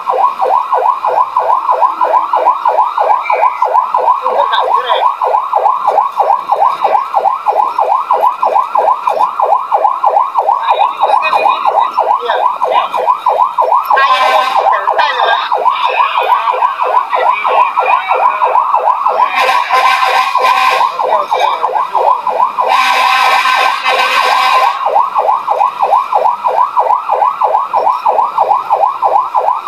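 Fire truck siren in fast yelp mode: a rapid rising-and-falling wail about four times a second. Three harsher blasts of one to two seconds each cut in over it, around the middle.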